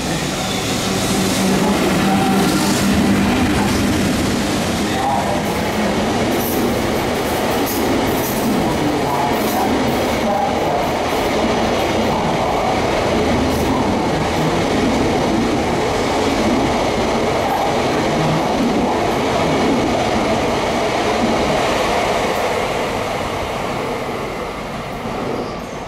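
A train of new Odakyu 5000-series cars, hauled by a locomotive, rolling past with its wheels clattering over the rail joints. The sound is loud and steady, then fades near the end.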